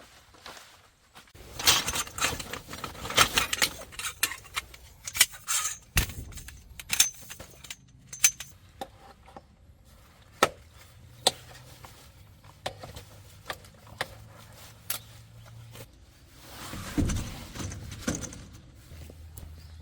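Small metal camping gear being handled: a busy string of light clinks and rattles, followed by two dull thuds near the end.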